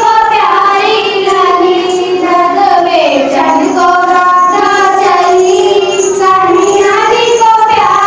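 A song with a high singing voice carrying a continuous melody over music.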